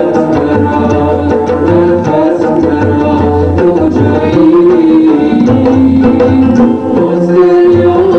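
Middle Eastern dance music: a hand drum beating a steady rhythm under a held, gently sliding melody line.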